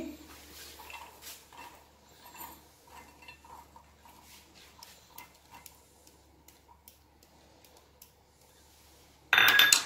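Fresh green peas poured and scraped with a plastic spoon from a glass bowl into a steel mixer-grinder jar: faint scattered pattering and spoon scrapes. A brief louder clatter comes just before the end.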